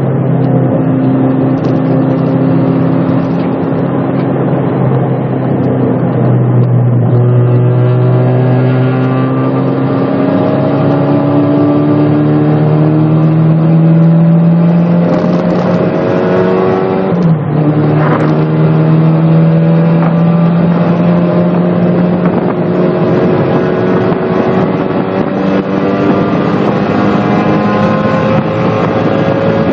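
Turbocharged 1990 Mazda Miata's four-cylinder engine pulling hard on track, heard from inside the cabin. The engine note holds fairly level for several seconds, then climbs steadily. It drops suddenly at an upshift a little past halfway, then climbs again.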